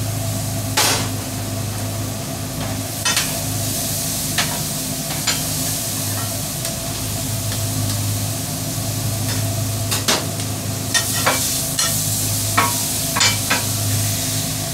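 Seasoned chicken, peppers and onions sizzling on a flat-top griddle, with a metal spatula clicking and scraping against the griddle at irregular times as the food is turned, more often in the second half. A steady low hum runs underneath.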